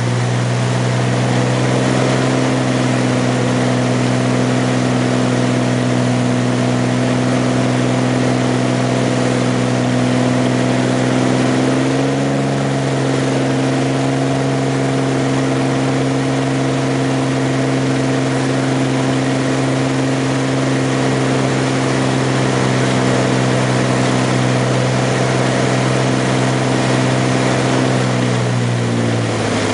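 Light single-engine propeller plane's engine and propeller running steadily, heard inside the cabin. The pitch steps up slightly about twelve seconds in, then sinks near the end as power comes off on the landing approach.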